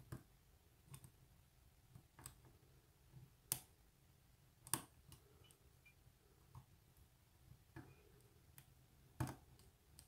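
Hook pick and tension wrench working the pin tumblers of a brass STA-LOCK padlock: faint, irregular metallic clicks, about eight, roughly a second apart, as the pins are lifted under tension.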